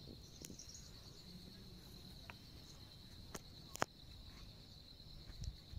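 Insects chirring in the vegetation, a steady high-pitched drone, with a few sharp clicks, the loudest a little under four seconds in.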